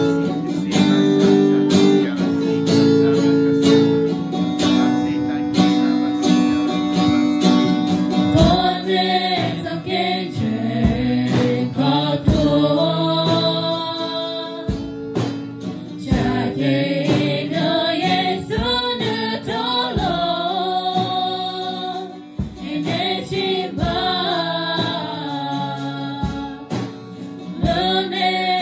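A live worship song in Hmong: acoustic guitar playing alone at first, then about eight seconds in a group of singers, women's voices to the fore, comes in with a drum kit keeping a slow, steady beat.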